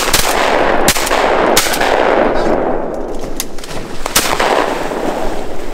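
A rapid volley of about half a dozen shotgun blasts from several hunters firing at flying ducks, the loudest at the start, about a second in and near the middle, each ringing out in a long echo.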